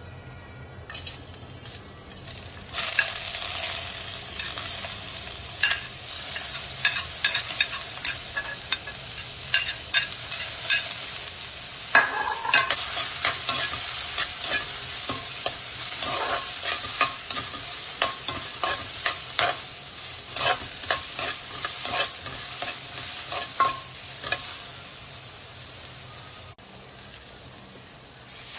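Chopped onion frying in hot oil in a metal frying pan, pushed off a plate with a spatula about a second in. A steady sizzle builds within a few seconds, with frequent sharp clicks and scrapes of the spatula stirring against the pan, and eases a little near the end.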